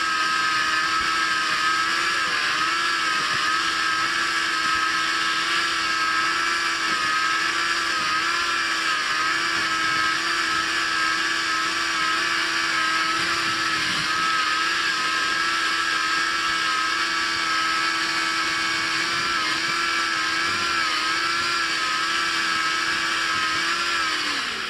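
Yamaha Apex RTX snowmobile's four-stroke four-cylinder engine running at a steady cruise, its note wavering slightly up and down. Right at the end the note drops as the engine slows.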